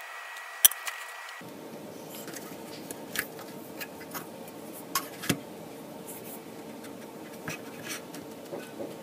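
Light clicks, taps and scratching of fingers handling a small switching regulator module and pressing it into place on a circuit board over a smear of thermal paste. A single sharp click about two-thirds of a second in is the loudest.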